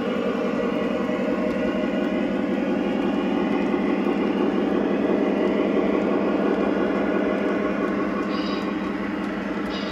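Lionel O gauge train running steadily on three-rail track: a continuous rolling rumble with rapid fine clicking from the freight cars' wheels on the rails, pulled by a Fairbanks-Morse Trainmaster diesel.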